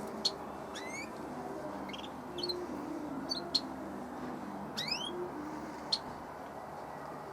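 Small aviary birds calling: short sharp high chirps every few seconds, and two rising sweeping calls, about a second in and again near five seconds.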